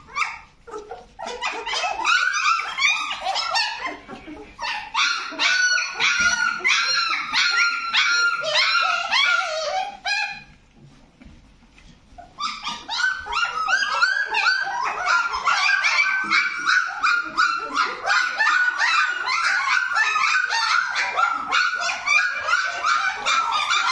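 A litter of 17-day-old puppies whining and squealing: many short, high-pitched cries overlapping almost without a break, with a lull of about two seconds about halfway through.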